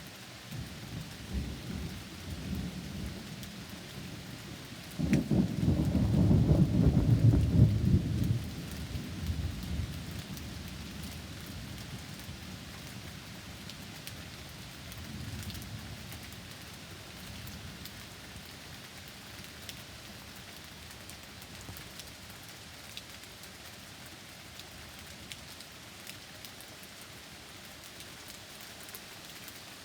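Thunder rumbling over steady rain. A low rumble starts about a second in, a loud peal breaks in suddenly about five seconds in and rolls on for a few seconds before dying away, and a fainter rumble follows about halfway through.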